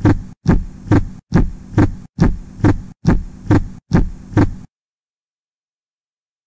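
Heartbeat sound effect: a double thump repeating a little faster than once a second, each beat over a low hum, cutting off suddenly about four and a half seconds in.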